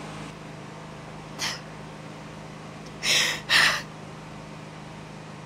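A young woman crying: sharp sniffling breaths, one short one about a second and a half in, then two louder ones in quick succession about three seconds in, over a steady low hum.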